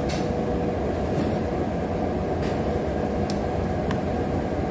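Steady low rumbling background noise in the eatery, with a few faint light clicks of utensils.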